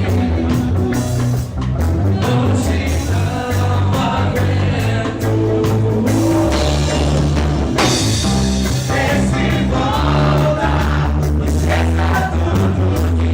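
A live rock-style Christian praise band playing a song, with a singer over drums, bass and guitar.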